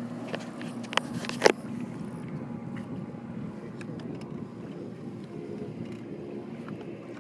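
Steady boat-motor hum over water and wind noise, slowly fading, with two sharp knocks about a second in.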